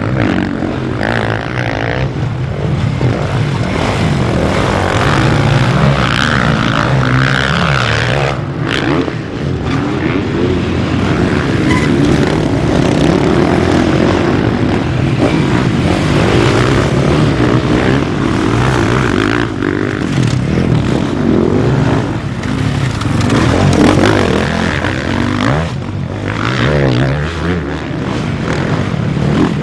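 Motocross bikes racing on a dirt track, their engines revving hard and rising and falling in pitch as they accelerate and shift through the corners and jumps.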